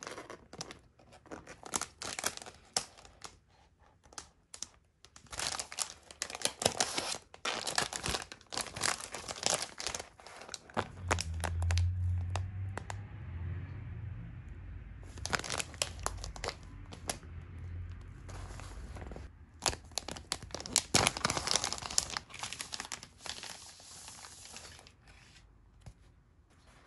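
Plastic wrapper of a large flat grilled fish-cake cracker crinkling and tearing as it is handled and opened, in repeated bouts of sharp crackles. There is a low rumble near the middle.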